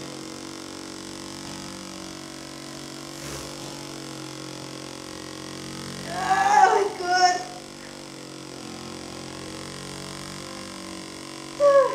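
Handheld percussion massage gun running steadily against the lower back, a constant low motor hum. About six seconds in there are two short, high, loud cries close together, and a shorter one near the end.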